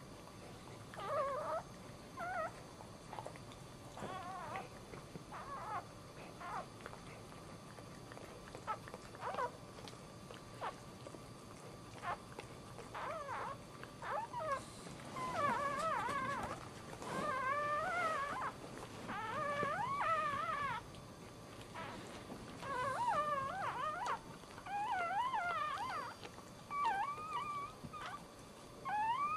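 Newborn puppy crying in short, wavering high-pitched squeals, scattered at first and coming thick and fast through the second half.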